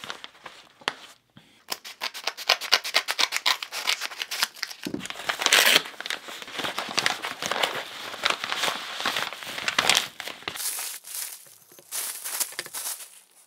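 A brown paper mailer crinkling and tearing as it is opened by hand, then green plastic wrapping rustling as it is pulled off metal trays: a dense run of crackles and rustles that starts about two seconds in and is loudest around the middle.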